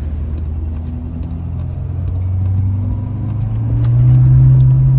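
Ford F-450 pickup's engine heard from inside the cab, pulling hard through standing water. Its low hum rises in pitch and grows louder from about three and a half seconds in as the truck accelerates.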